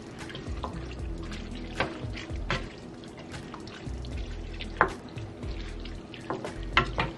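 Spoon stirring a pot of chili, with a series of sharp clinks and knocks against the pot, several of them close together near the end, over soft background music.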